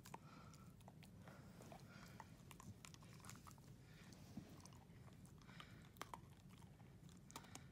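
A dog chewing a small treat, faint crunching and scattered small clicks of teeth and mouth.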